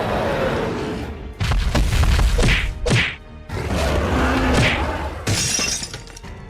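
Cartoon sound effects: a string of quick swooshes and whacking thuds over a deep rumble, busiest in the first half.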